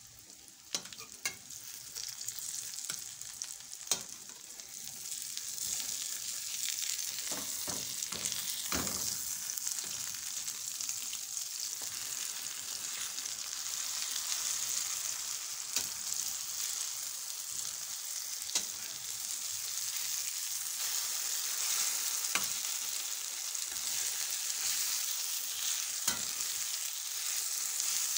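Egg omelette with tomato and onion sizzling in oil in a metal frying pan. The hiss grows louder over the first few seconds and then holds steady. Now and then there are sharp clicks and scrapes of a spatula against the pan as the omelette is turned and broken up.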